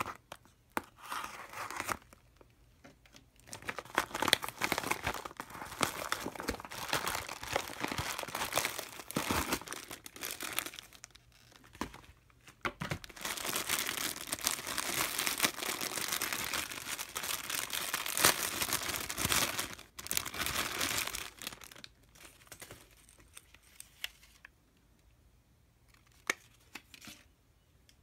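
Plastic packaging crinkling and tearing as hands work a plush charm out of its clear plastic bag, in long rustling stretches that die down to a few faint rustles near the end.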